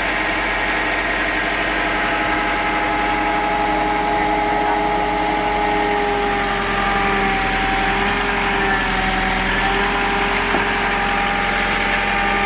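Excavator's diesel engine running steadily with a whine of several pitched tones, which dips slightly for a few seconds past the middle.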